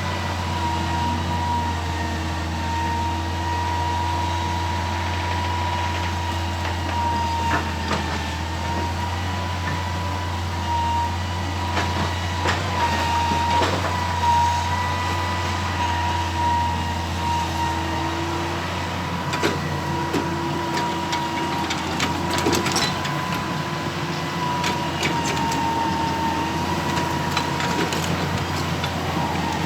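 Excavator running steadily: a low engine drone with a slightly wavering high whine over it, and occasional sharp knocks scattered through.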